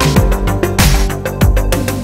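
Electronic background music with a fast, steady beat and deep bass.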